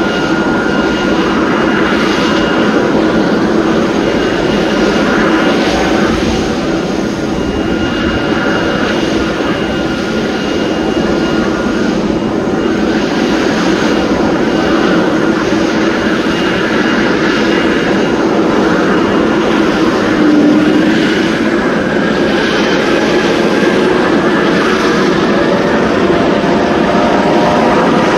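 Air ambulance helicopter running steadily on the ground: a constant turbine whine with several steady tones over a continuous rush of engine and rotor noise.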